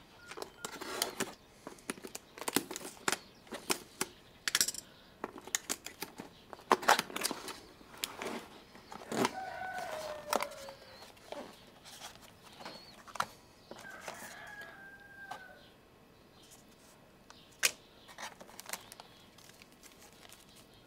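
Cardboard camera box and its inner packaging being opened and handled: a run of clicks, taps and crinkly rustles of cardboard and plastic wrap. A rooster crows in the background twice, around the middle.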